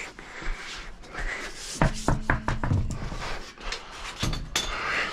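Knocks, clunks and scrapes of a wheel and tire being worked onto the truck's hub, with a quick run of about half a dozen sharp knocks about two seconds in.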